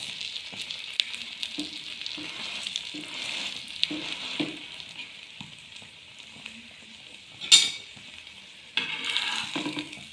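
Egg-soaked bread toast sizzling in oil in an aluminium frying pan, with small clicks of a spatula working it. A short, louder scrape comes about seven and a half seconds in, and the sizzling grows louder near the end as the toast is turned.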